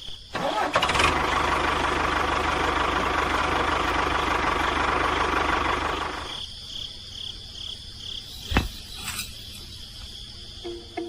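A small motor starts and runs steadily for about five seconds, then stops. A single sharp click follows a couple of seconds later.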